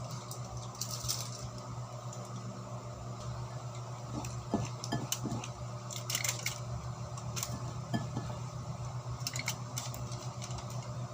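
Scattered light clinks and clatters of kitchen utensils and dishes being handled, over a steady low hum.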